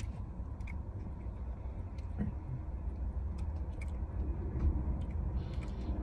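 Steady low rumble inside a car cabin, with a few faint clicks. Near the end comes a soft breathy hiss as vape vapour is exhaled.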